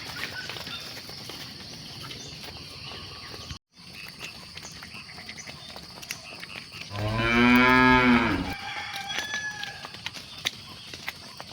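A cow moos once, a single long low call lasting about a second and a half, over a steady outdoor background of small clicks and rustles. The background drops out for a split second a little over three seconds in.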